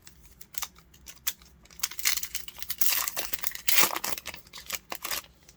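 A Yu-Gi-Oh booster pack's foil wrapper being torn open and crinkled by hand. A few sharp crackles come first, then dense crinkling for about three seconds.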